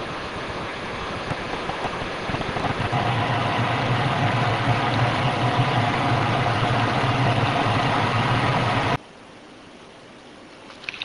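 Steady mechanical hum over a loud rushing noise, which cuts off abruptly about nine seconds in.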